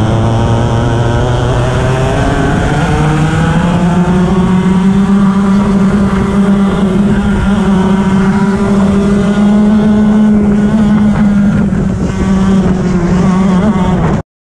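Onboard sound of a two-stroke racing kart engine at high revs. It sits lower through a corner, then climbs as the kart accelerates out and holds a steady high note down the straight, with a couple of small dips. It cuts off suddenly near the end.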